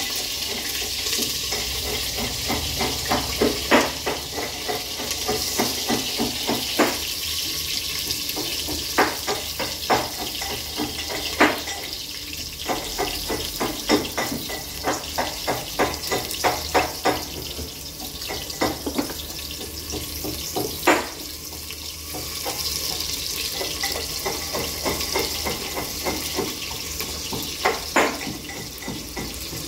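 Kitchen cooking sounds: a steady hiss with frequent irregular knocks and scrapes of a utensil against a cooking pot.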